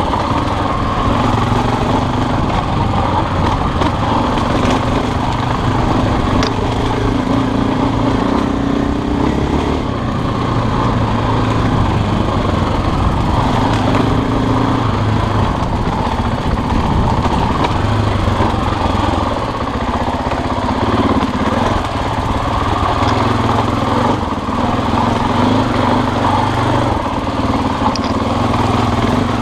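Husqvarna dirt bike engine running steadily while the bike is ridden along a trail, its note rising and falling.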